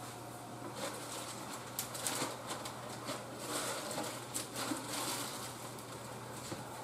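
Faint, irregular rustling and handling noises, things being moved about at a kitchen sink and counter, over a steady low hum.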